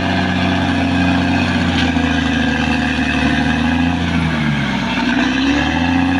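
Diesel engine of a Caterpillar D6R XL bulldozer running steadily. Its engine speed sags about four seconds in and climbs back up near the end.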